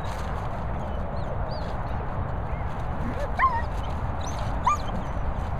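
A dog gives two short, high yips during rough play, about three and a half and four and a half seconds in, over a steady low rumble.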